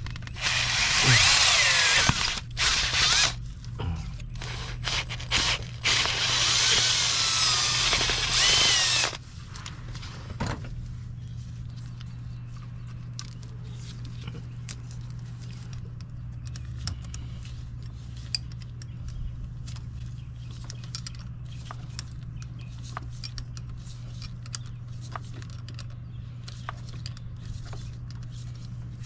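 Power drill drilling out a hole for a 1/4-inch bolt in the carburetor's throttle linkage. It runs in several bursts with short stops, its pitch sliding as the bit cuts, for about nine seconds. After that come only light scattered clicks over a low steady hum.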